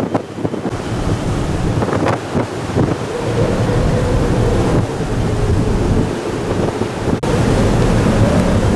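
Strong wind buffeting the microphone on a ferry's open deck over a rough sea, with the rush of the water underneath and a faint steady hum. The sound changes abruptly about seven seconds in.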